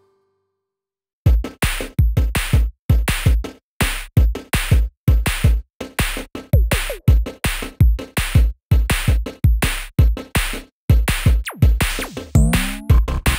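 Background music: an electronic track with a steady drum-machine beat, starting about a second in after a brief moment of silence.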